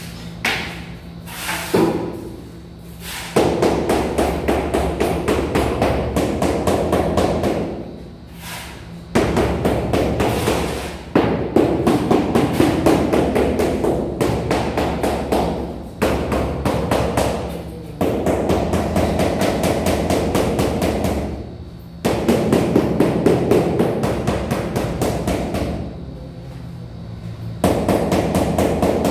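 Rubber mallet knocking on floor tiles in rapid, repeated taps and thuds as they are bedded into the mortar. Heavier stretches of knocking start and stop abruptly several times.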